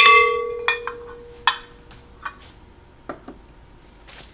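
A metal measuring cup knocks against the rim of a glass mixing bowl, and the glass rings on in one clear tone that dies away over about two seconds. A few lighter clinks and taps follow.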